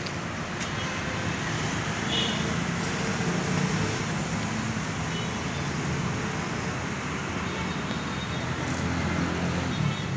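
Steady road-traffic noise: a low engine rumble from passing vehicles with a continuous hiss.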